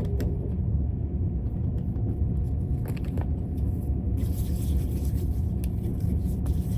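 Steady low rumble of a moving vehicle, with a faint hiss joining about four seconds in.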